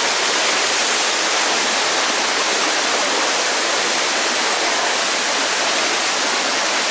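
Steady rush of a waterfall and mountain stream, an even hiss of falling water with no breaks.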